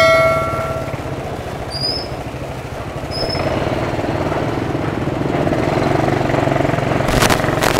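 Motorcycle engine running at low revs amid street traffic, with motorcycle tricycles passing close by; the drone grows louder a few seconds in. A bell-like chime rings at the start and fades within the first second, and there is a brief noisy rush near the end.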